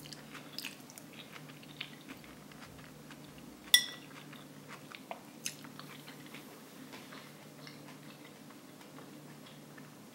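Close-up chewing of rice and vegetable curry: soft, moist mouth sounds and small crackles. A little under four seconds in, a single sharp clink of cutlery on the plate rings briefly. A low steady hum runs underneath.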